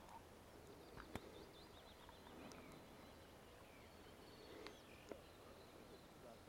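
Near silence, with faint birdsong and a couple of soft clicks.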